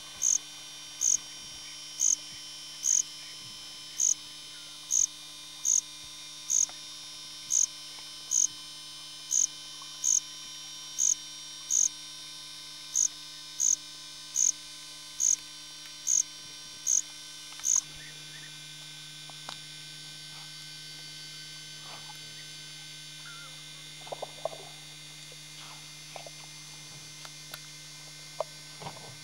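Steady electrical hum with a short high-pitched beep repeating about once a second; the beeps stop about two-thirds of the way through, leaving the hum with a few faint clicks.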